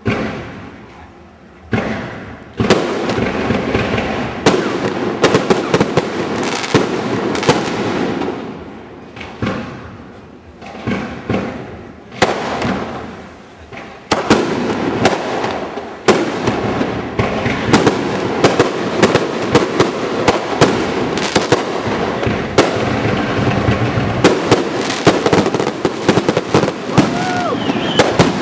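Fireworks display: a rapid barrage of shell bursts, bangs and crackling. It eases off twice in the middle, then builds into a dense, continuous barrage.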